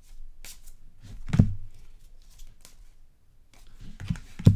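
Trading cards being handled on a table: a string of short rustles and slides as cards are flipped and set down, with two louder taps, about a second and a half in and at the very end.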